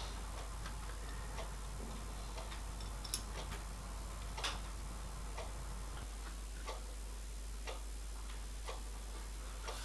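Small steel clamps and screws clicking lightly against a lathe fixture as they are fitted and tightened by hand: a few scattered faint ticks over a steady low hum.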